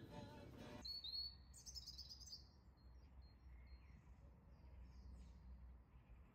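Faint birdsong outdoors: a quick run of high chirps about a second in, then fainter scattered calls, over a low steady rumble.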